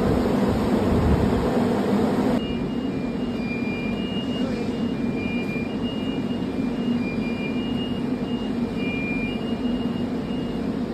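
Steady low mechanical hum from the funicular railway's machinery. After a cut about two seconds in, the hum continues a little quieter, joined by short high-pitched beeping tones that come and go at two alternating pitches.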